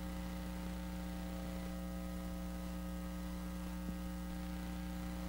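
Steady electrical mains hum, a low buzz with a ladder of higher overtones held at one pitch.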